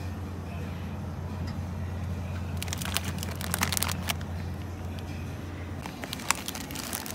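Crinkling plastic snack packaging handled in two short spells as a packet of cheese is taken from a shelf and put into a plastic shopping basket, with a sharp tick in the second spell. A low steady hum runs underneath and stops about six seconds in.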